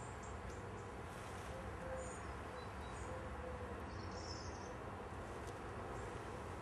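Steady outdoor background noise with a few faint, short high chirps; no stamping or impacts on the speakers.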